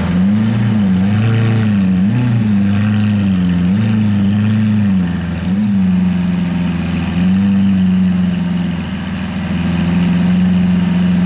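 Lamborghini Aventador Roadster's V12, fitted with the sports exhaust, idling. Its pitch rises and falls slightly about once a second for the first half, then holds steady.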